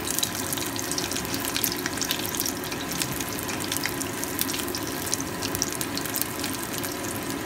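Egg rolls deep-frying in hot oil: a steady sizzle with constant fine crackling and popping.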